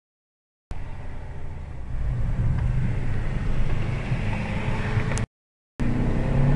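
Abarth 500C's 1.4 turbo four-cylinder heard from inside the cabin while driving, with road noise; the engine note climbs in pitch near the end as the car accelerates. The sound cuts in abruptly about a second in and drops out for about half a second near the end, a fault in the recording's audio.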